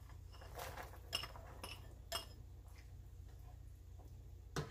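A plastic slotted spatula tapping and clinking against a ceramic bowl and a steel wok as carrots are scraped in and stirred: a few light clinks, the sharpest one near the end.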